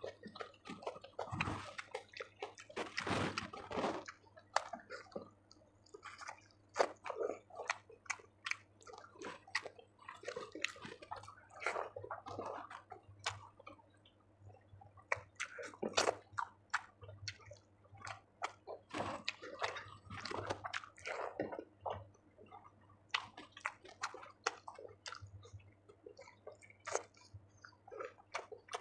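Close-miked eating sounds: wet chewing and mouth smacks while eating rice with chicken curry, a run of irregular clicks and squelches.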